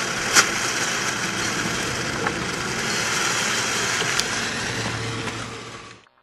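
Near-boiling water and steam rushing out of a pipe into a plastic bucket: a steady rushing noise with one sharp click about half a second in, fading out near the end. The water has been heated to steam by the copper solar collector panels it has just passed through.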